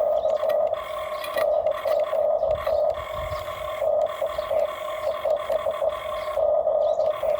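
Small electric motors and plastic gearboxes of a radio-controlled toy construction machine whining at a steady pitch, pulsing in short bursts as the controls are worked, with some scraping.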